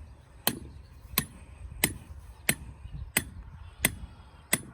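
Steady, evenly spaced hammer blows on a metal ground rod being driven in for an electric fence, about one and a half strikes a second, each with a short bright metallic ring.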